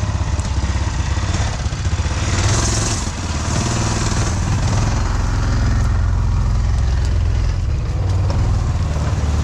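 Engine of a 1970s Amphicat 6x6 amphibious ATV running steadily under load as the machine climbs a steep dirt slope.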